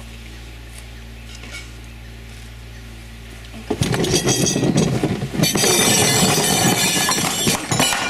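A low steady background hum. Then, a little under four seconds in, a sudden loud commotion as an African elephant lunges at an outdoor dining table: close jostling and rustling as the camera is knocked about amid the scramble.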